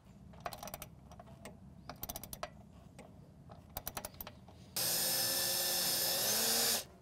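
Socket ratchet wrench clicking in short runs as a bolt on the railing post base is turned. About five seconds in, a cordless drill runs for about two seconds, rising slightly in pitch near the end, then stops.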